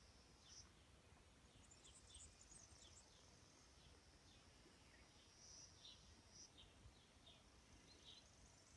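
Faint outdoor ambience: many short bird chirps scattered over a steady, high insect buzz that swells now and then.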